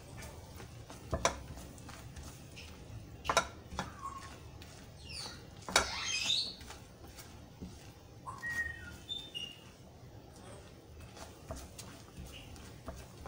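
Spatula stirring thick jaggery syrup in a nonstick frying pan, with a few sharp clicks as it knocks against the pan. Around the middle, a few high chirps and short whistle-like calls, bird-like, sound in the background.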